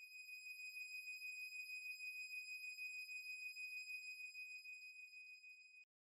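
Steady high-pitched sine-wave tone driving a sand-covered Chladni plate, holding one pitch with faint overtones. It cuts off sharply just before the end, as the frequency is about to change.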